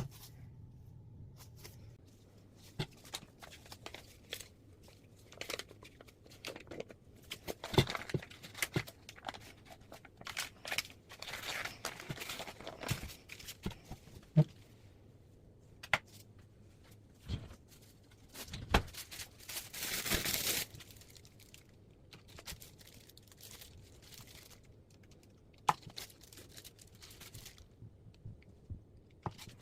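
Packaging being torn open and crinkled by hand, with scattered sharp clicks and taps and one longer rustle about twenty seconds in.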